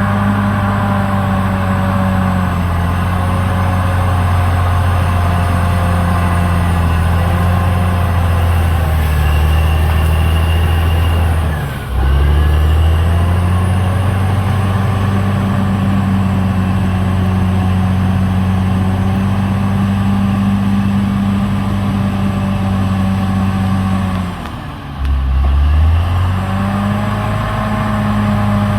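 CAT D6R XL bulldozer's diesel engine running steadily, with a strong low engine note. Twice, once a little before the middle and once near the end, the note dips briefly in pitch and loudness and then picks back up.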